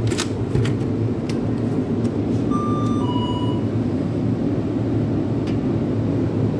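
Steady low hum of a shop's refrigerated display cabinets and background machinery, with a few sharp clicks near the start. Two short electronic beeps at slightly different pitches come about two and a half and three seconds in.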